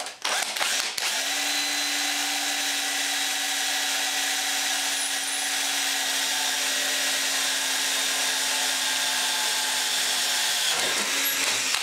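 Power drill boring a rivet hole through two clamped pieces of thin metal. It runs at a steady pitch from about a second in and stops shortly before the end.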